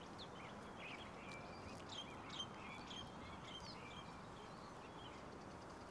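Faint outdoor ambience of small birds chirping: short, quick chirps about two a second over a steady background hiss.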